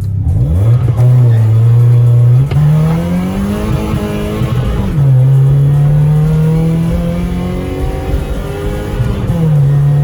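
BMW E30's engine accelerating through the gears. The revs climb over the first few seconds, drop sharply at a gear change about five seconds in, then climb slowly again and ease off near the end.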